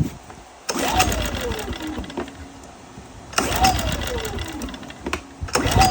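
Westinghouse 2500 inverter generator being pull-started: three sharp pulls of the recoil starter, about a second in, midway and near the end. After each of the first two the engine spins up and winds down in falling pitch without catching. It is a sign that it is not getting fuel, the fault the owner puts down to a bad carburetor.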